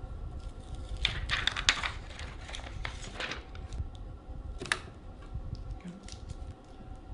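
Plastic crackling and a run of quick clicks as the netbook's plastic screen parts are handled and worked free, with one sharper click about halfway through.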